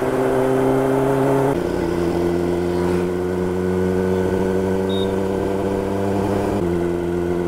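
Kawasaki ZX-10R's inline-four engine running at steady revs on the move. Its pitch drops abruptly about a second and a half in and shifts again near the end.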